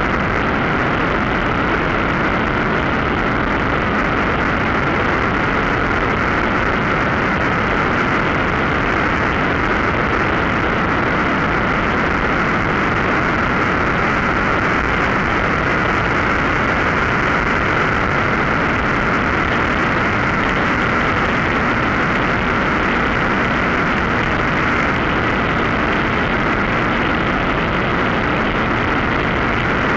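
Steady drone of a Mosquito NRG powered hang-glider harness's engine and pusher propeller running in flight, mixed with wind rushing over the microphone.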